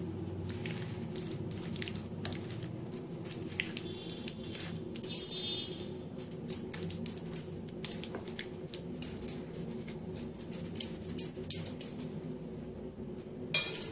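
A hand squishing and kneading paneer pieces in a thick yogurt and mustard-poppy paste in a plastic bowl, making soft wet squelches and small clicks, with light clinks from bangles on the wrist. A steady low hum runs underneath, and a brief louder rattle of clicks comes near the end.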